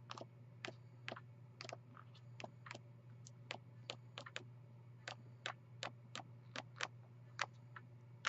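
Faint, irregular sharp clicks and ticks, about two to three a second, from hands handling and flipping a scrapbook paper pad, over a steady low hum.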